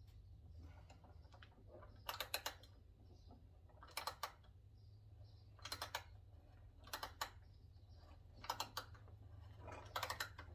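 Short bursts of sharp clicks, six in all, about every one and a half seconds, from hand work threading holes for 1/4-20 screws, over a faint low hum.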